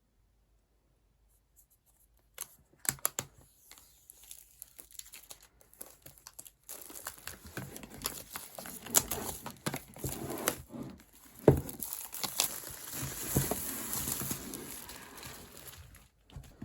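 MacBook Pro packaging being torn open and crinkled: a few sharp snaps about two and a half seconds in, then a long stretch of crinkling and tearing with louder snaps, ending shortly before the end.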